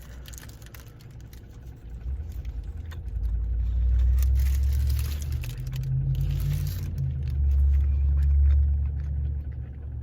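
Low rumble of a motor vehicle that builds about two seconds in and swells twice, with faint clicks over it.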